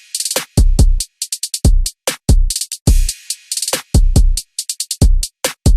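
Electronic drum-machine beat: deep kick-drum strikes with crisp snare and hi-hat hits in a steady rhythm.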